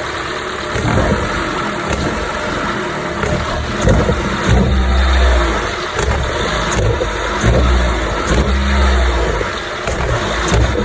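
Jeep Renegade's 2.4-litre four-cylinder engine revved several times, each rev rising out of a steady run, with sharp pops and a rattle over it. This is the popping, buzzing or rattling noise the engine makes on acceleration.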